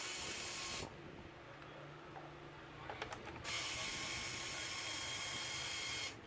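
Small electric screwdriver running in two bursts, the first lasting about a second and the second, after a short pause with a few light clicks, lasting about two and a half seconds, backing out screws from a laptop's bottom case.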